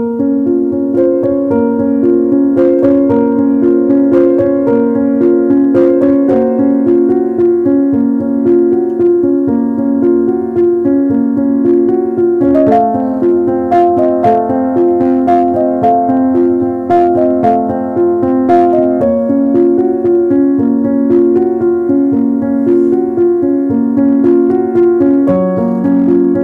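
Background piano music: a slow melody of held notes that starts suddenly at the opening, with a higher line of notes joining about halfway through.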